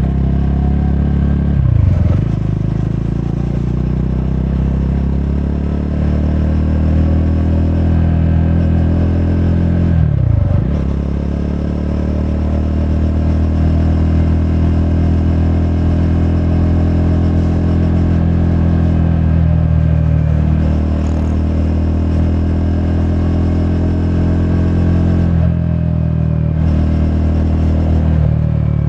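Triumph Scrambler 400X's single-cylinder engine running through its stock exhaust, idling steadily with four short throttle blips spread through it.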